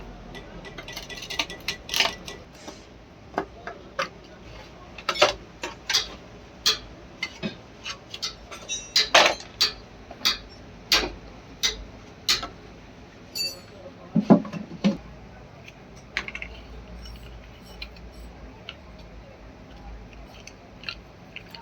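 Irregular sharp taps, knocks and clinks of hard tools and parts being handled and struck, coming thickly for most of the stretch and then thinning out near the end.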